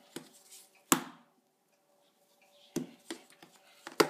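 Plastic fashion doll knocking on a wooden floor as hands flip it through handsprings: a series of short, irregular taps and knocks, the loudest about a second in and a cluster near the end.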